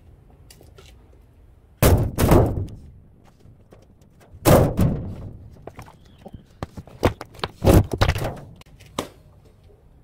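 Heavy thuds and knocks from a washing machine's steel cabinet and parts being handled while it is taken apart for scrap: a pair of loud thuds about two seconds in, another near the middle, then a run of sharper knocks toward the end.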